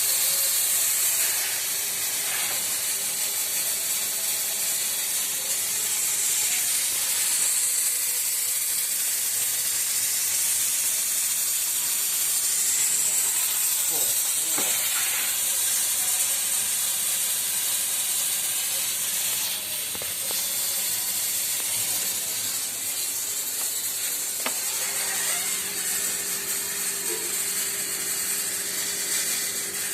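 A loud, steady hiss, like spray or escaping gas, with a few faint clicks around the middle; a low steady hum joins in near the end.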